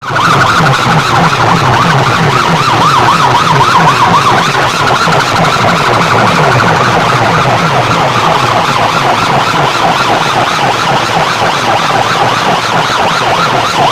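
Electronic siren sounding loudly, its tone warbling rapidly up and down about three to four times a second without a break.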